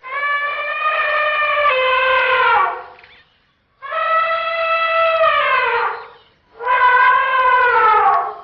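Asian elephants trumpeting: three long, high, brassy calls, each falling in pitch at its end, with short pauses between them.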